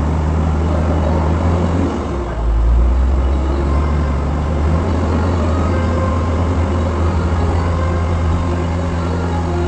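A machine running with a steady low hum, its pitch holding throughout, with a brief swell about two to three seconds in.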